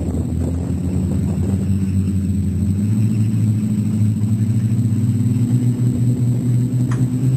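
Off-road 4x4's engine running steadily, rising to a higher, steady rev about three seconds in.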